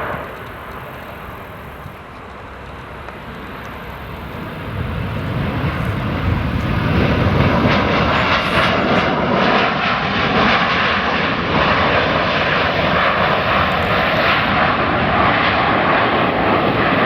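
Boeing 737-800 airliner's CFM56-7B jet engines on landing approach: the jet noise swells from about five seconds in as the aircraft comes closer, then stays loud, with a faint steady whine in the middle.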